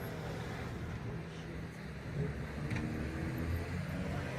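Vehicle engine running in traffic, a steady low hum.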